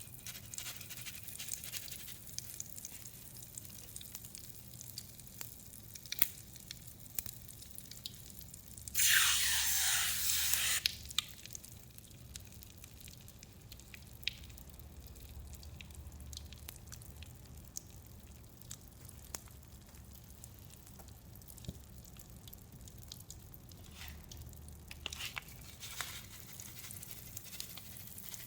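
Mr. Bubble bath crackles popping and fizzing in wet detergent and chalk, a faint fine crackle with scattered small clicks. About nine seconds in, an aerosol foam spray hisses loudly for about two seconds.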